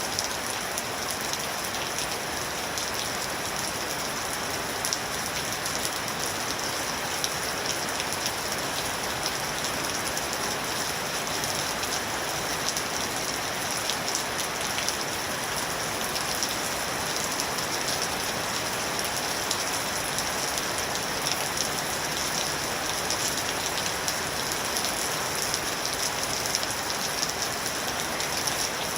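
Steady rain falling on a surface, an even hiss with many small drop patters.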